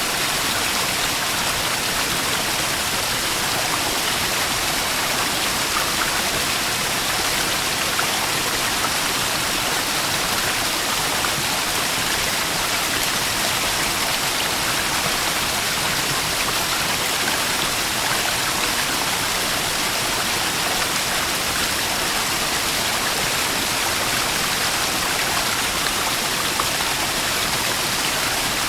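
Small waterfall splashing and rushing steadily, a constant even wash of falling water.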